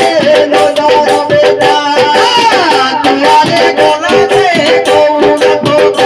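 Odia sankirtan devotional music: a man singing into a microphone over sustained keyboard tones, with a fast, steady percussion beat and jingling hand percussion.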